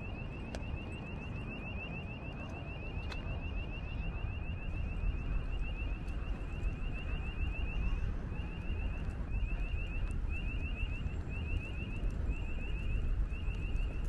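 An electronic alarm sounding rapid short rising chirps, about five or six a second. From about eight seconds in the chirps break into short groups about once a second. Wind rumbles on the microphone underneath.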